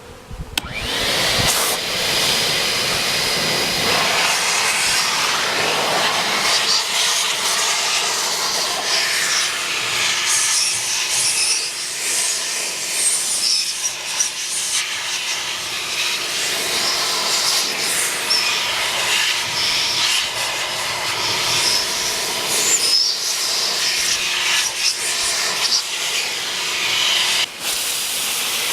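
Vacuum cleaner switched on about half a second in and running steadily as a blower, its air stream blowing bees off honey frames.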